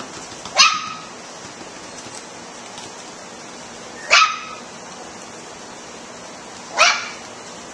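Puppy barking: three short, high barks, each a few seconds apart, the first the loudest.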